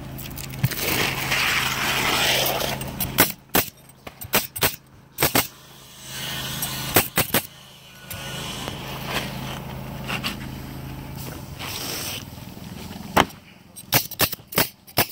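Pneumatic coil roofing nailer firing nails through asphalt shingles: sharp shots in quick groups, several about three to five seconds in, a pair near seven seconds, and another run near the end. A steady low hum runs underneath and stops about eleven seconds in.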